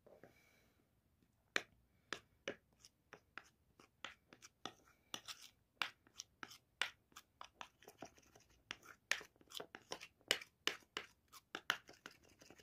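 Metal spoon scraping and clicking against a ceramic bowl while stirring a thick paste, about three strokes a second, starting about a second and a half in.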